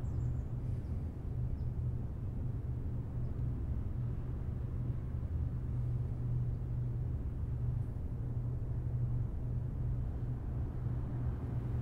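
A steady low rumble, an even drone with no distinct knocks or changes.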